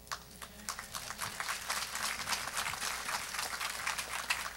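Congregation applauding: scattered claps at first, thickening into steady applause from about a second in and thinning out near the end.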